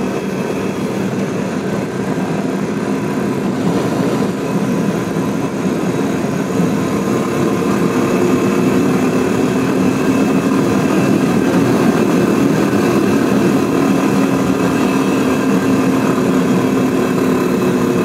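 Royal Enfield Classic 350's single-cylinder engine running steadily at about 60 mph, with wind rush on the helmet mic. It grows gradually louder.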